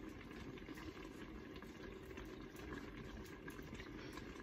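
Low, steady hiss and bubble of a pot of chicken and dumplings simmering on a gas flame, with a few faint soft taps of a fork pulling apart cooked chicken on a plate.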